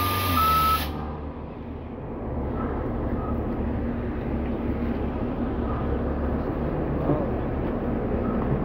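A simple tune on two alternating notes cuts off about a second in. After that, an NJ Transit NABI 416.15 bus's diesel engine idles steadily at the curb with the front door open, with a few faint short beeps.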